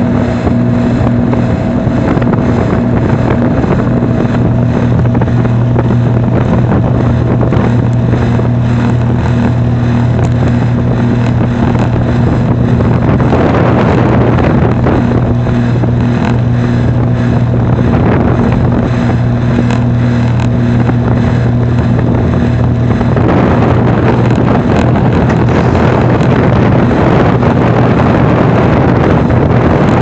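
Carrier outdoor air-conditioner condensing unit running: a steady hum from its Bristol reciprocating compressor over the rushing air of the condenser fan, a compressor that the owner believes is close to failing. The rushing swells for a few seconds about halfway through and again over the last several seconds.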